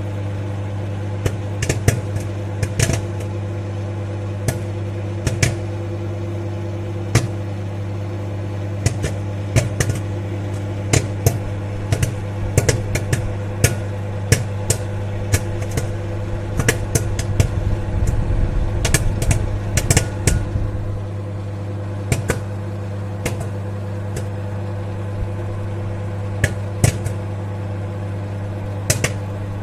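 Microwave popcorn popping inside a running microwave oven: sharp, irregular pops over the oven's steady low hum. The pops come thickest midway and thin out to scattered single pops near the end, as the batch nears done.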